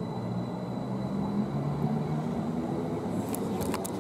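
Red electric multiple unit running past close along the platform: a steady hum with a thin high whine from its electric equipment, growing louder. A few sharp clicks near the end.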